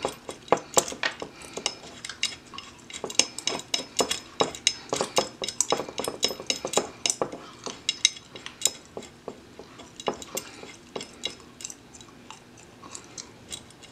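Light, irregular metallic clicks and taps of a pistol slide shifting against a sight pusher tool as it is lined up in the tool's clamp, thinning out in the last few seconds.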